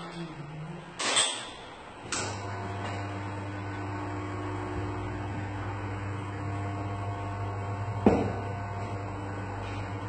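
Espresso machine running: a sharp metal clack about a second in, then its pump starts and hums steadily while a shot is pulled, with another clack about eight seconds in.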